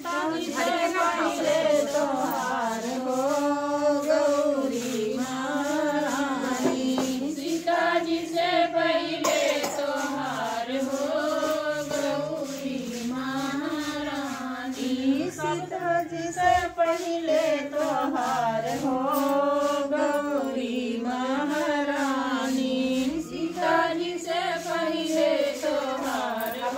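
Group of women singing a Bhojpuri devotional song to the goddess Gauri together, the melody rising and falling in repeated phrases.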